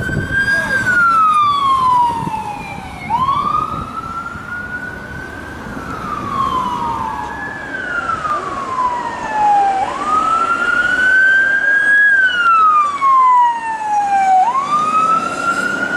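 Police car siren on a slow wail. Each cycle rises quickly, holds briefly, then glides down, repeating about every four seconds.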